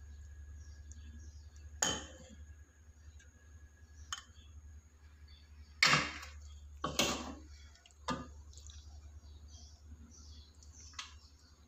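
Metal ladle clinking and knocking against a pot and a ceramic soup bowl as soup is served, about six separate clinks with the loudest two in the middle, over a steady low hum.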